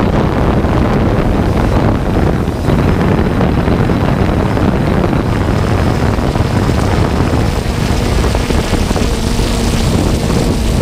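Multirotor drone's motors and propellers running steadily, heard from the camera it carries: a loud rushing noise with a faint steady hum, and wind buffeting the microphone.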